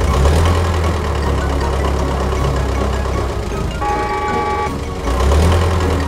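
Cartoon bulldozer engine sound effect running with a low rumble that drops out briefly in the middle, and a short horn toot about four seconds in.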